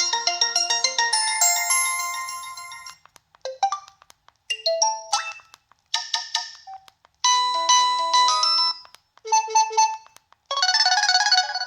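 Preloaded ringtones on an LG Revere Black Edition phone, played one after another: short electronic melodies of bright synthesized tones, each cut off after one to three seconds with a brief gap before the next. A denser, busier tune starts near the end.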